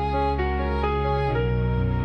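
Background music: slow, soft new-age style with sustained notes and a low bass, the chord changing about every half second.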